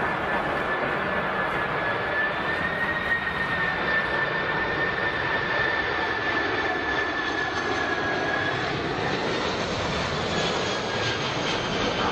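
Airplane engines running steadily: a broad rush with a high, steady whine over it that weakens in the last few seconds.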